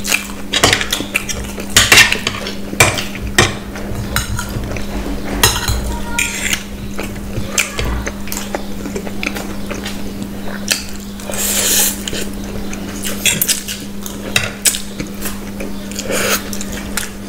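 Metal forks clinking and scraping against plates in irregular sharp clicks as two people eat chow mein, with eating noises; a longer hissy smear comes about two-thirds of the way in. A steady low hum sits underneath.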